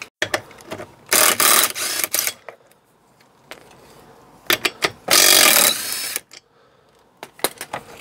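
Cordless impact wrench hammering the front wheel bolts loose, in two loud bursts of about a second and a half, one about a second in and one about five seconds in, with a few short mechanical clicks between them and near the end.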